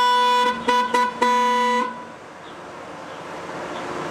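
Car horn honking: a long blast, two quick short toots, then another longer blast, all on one steady pitch, stopping about two seconds in.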